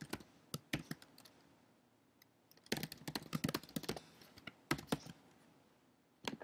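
Computer keyboard typing in short bursts: a few keystrokes in the first second, a quick run of keystrokes from about 3 to 4 seconds in, then a couple more near 5 seconds and a single one near the end.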